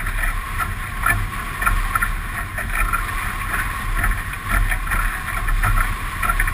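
Water rushing along the hull of an F18 catamaran sailing fast, with irregular splashes of spray, under a steady low wind rumble on the microphone.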